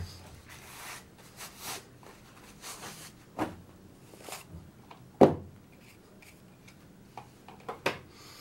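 Handling noises at a workbench: a gloved hand brushing along a rough-shaped oak stair-rail blank, with a few scattered knocks. The loudest knock comes about five seconds in.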